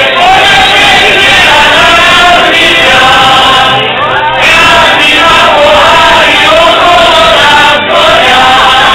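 A group of folk singers singing a Slovak folk song together in full voice.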